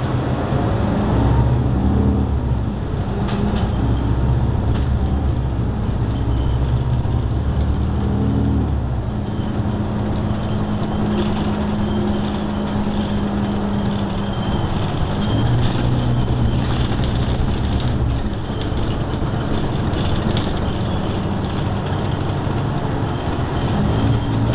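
New Flyer XD60 articulated bus's diesel engine and drivetrain running while the bus drives along, heard from inside the passenger cabin. Its low note shifts a few times, with a steady hum in the middle.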